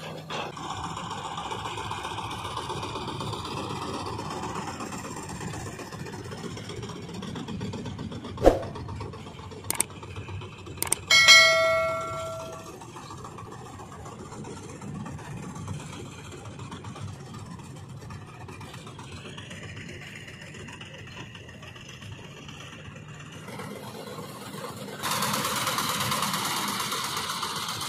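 Diesel farm machinery running steadily: a tractor pulling a trolley, then a tracked combine harvester cutting paddy. A few sharp clicks come about eight to eleven seconds in, followed by a metallic clang that rings for about a second. Near the end the machine noise grows louder as the combine comes close.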